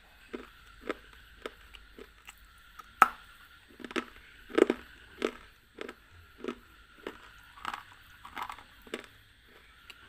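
Teeth nibbling and biting at the edge of a hard, pinkish block, close on a clip-on microphone: a series of short, sharp crunches about twice a second, the loudest about three seconds in and again halfway through.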